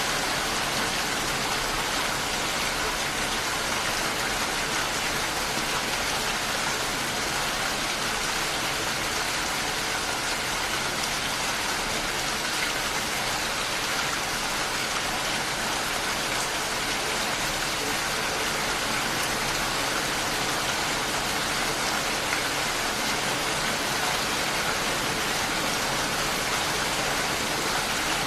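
Steady, even rainfall, with no breaks or changes.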